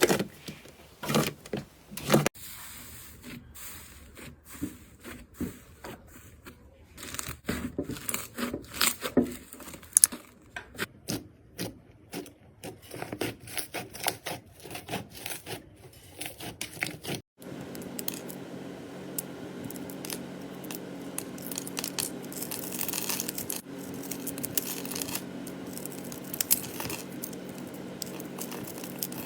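Slime being stretched and pressed by hand, with many sticky clicks, crackles and tearing sounds. About two-thirds of the way through, a cut brings in a steady low hum under the crackling.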